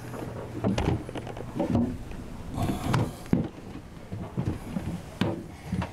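Irregular knocks, bumps and rustling over a faint steady low hum.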